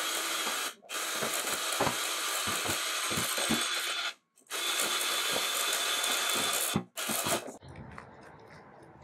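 Electric hand mixer running, its beaters whipping cream in a stainless steel bowl, with low knocks in the steady whir. It cuts out briefly three times and stops near the end.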